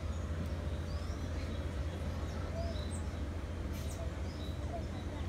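Smooth-coated otters, a family with pups, giving short high-pitched chirps about every half second, over a steady low rumble.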